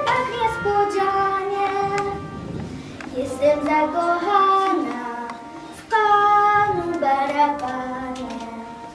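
A girl singing a solo melody with long held notes that step up and down in pitch.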